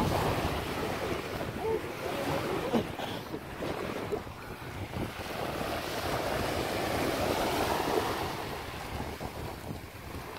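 Shallow sea water washing and lapping over sand at the water's edge, with wind buffeting the microphone.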